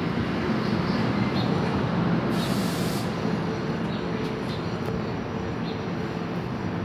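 NJ Transit bi-level commuter coaches rolling slowly past along the platform as the train brakes for a station stop, with a steady rumble. A short burst of hiss, typical of an air release, comes about two and a half seconds in.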